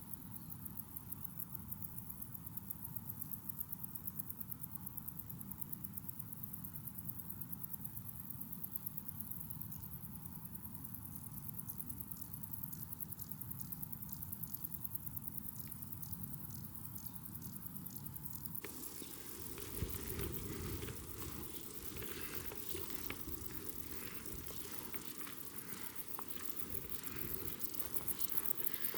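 Footsteps on a hiking trail, about two steps a second, over a steady low rumble. The sound changes character about two-thirds of the way in.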